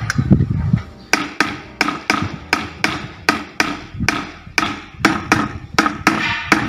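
Drumsticks playing diddles (double strokes) on a drum practice pad: a steady rhythm of sharp taps, mostly in close pairs, with a heavier low thump in the first second.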